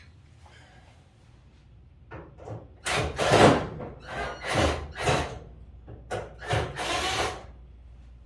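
A run of about eight short rubbing, scraping strokes, the loudest about three seconds in, typical of lint being scraped and wiped out of a clothes dryer's lint filter by hand.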